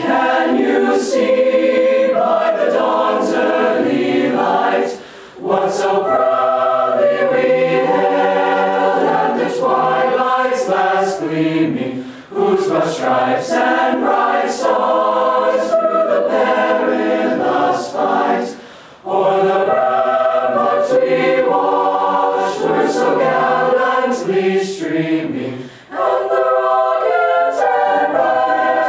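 A choir singing long, held notes in phrases, with a brief pause about every seven seconds.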